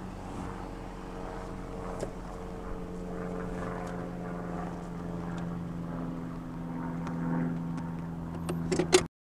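2002 Nissan Frontier pickup's engine running as the truck pulls away, a steady hum that grows a little louder and higher about seven seconds in. A few sharp knocks near the end, then the sound cuts off.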